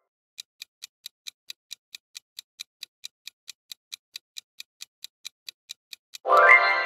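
Countdown timer sound effect ticking steadily at about four and a half ticks a second, then, near the end, a loud pitched musical sting that starts suddenly and rings on.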